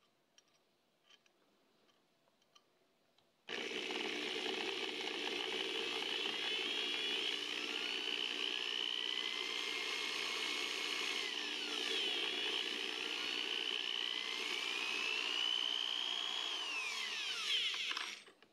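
Cordless drill spinning a 1911 grip screw in its chuck while a flat file is held against the underside of the screw head, filing it down. The drill starts suddenly about three and a half seconds in, after a few faint clicks, and its whine climbs and falls in pitch twice before it stops abruptly near the end.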